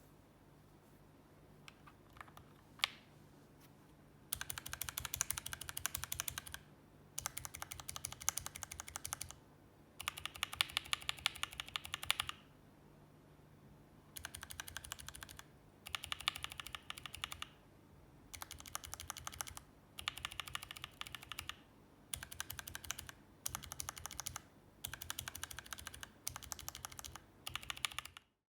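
A mechanical keyboard with Everglide Oreo tactile switches being typed on. There are a few single key presses, then about ten bursts of fast typing, each a couple of seconds long with short pauses between, and the sound cuts off suddenly near the end.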